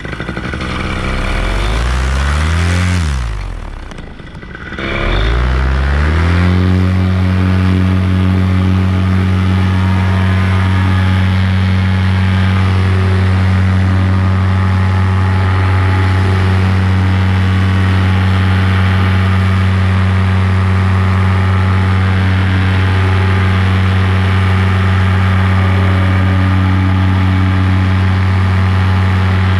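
Paramotor's two-stroke engine revving up for a takeoff run, dropping back sharply about four seconds in, then climbing again and held at steady full power.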